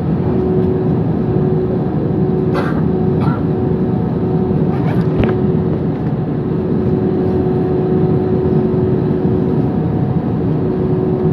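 Airbus A320 jet engines at taxi power heard from inside the cabin by a window: a steady rumble with a steady hum through it, as the airliner taxis onto the runway. A few brief knocks come about two and a half to five seconds in.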